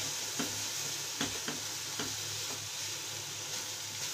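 Wooden spatula stirring and scraping thick coconut and milk-powder barfi paste in a nonstick pan, with a few light knocks against the pan over a low steady hiss.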